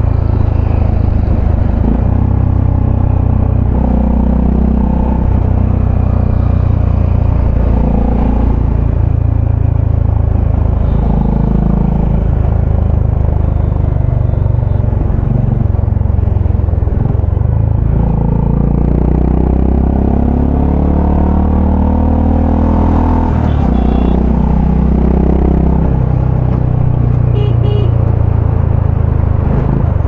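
Honda CB350RS's single-cylinder engine and exhaust heard from the rider's seat while riding. The engine note steps and shifts with throttle and gear changes, rising in pitch several times in the second half.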